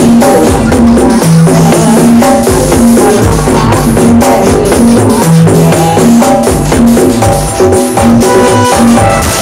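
Very loud music with a steady beat, played through Bofago Audio's truck-mounted stacked loudspeaker system.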